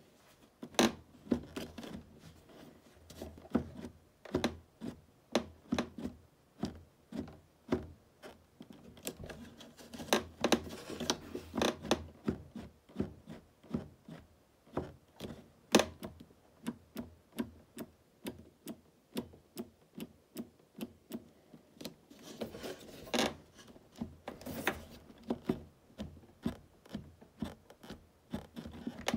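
Atomic Backland Carbon touring boot's loose cuff pivot clicking as the cuff is pushed by hand, first forward and back, then at the walk-lock pin, then side to side: a steady run of sharp plastic-and-metal clicks, about one or two a second. The clicks are the knock of free play in the cuff hinge's worn pivot bushing.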